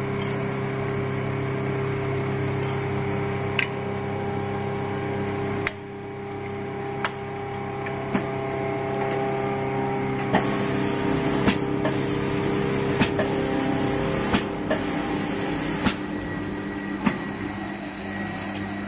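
Automatic spray-painting machine running with a steady hum and sharp mechanical clicks about every second or two. From about ten seconds in, the spray guns hiss in several bursts of a second or so each, with brief gaps between them.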